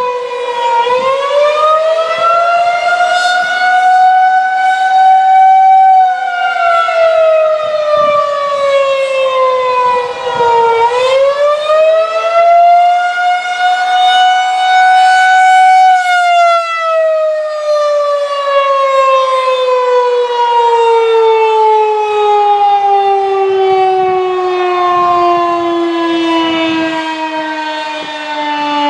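Federal Signal 2001-130 electromechanical outdoor warning siren sounding the wavering attack signal: its tone twice rises slowly and falls, then from about halfway through slides steadily down in pitch as the siren winds down.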